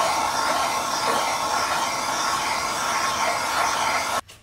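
Handheld gas torch burning with a steady hiss, its flame warming the aluminium crankcase around a bearing bore so the new bearing can slide in. The hiss cuts off suddenly near the end as the torch is shut off.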